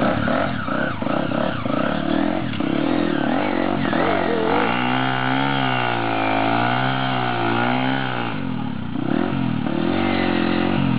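Motorcycle engine running, its pitch wavering up and down repeatedly as the throttle is opened and eased.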